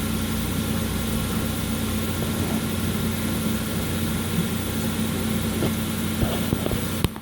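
Steady machine hum with a constant low tone, ending in a sharp click about seven seconds in, after which the sound drops away.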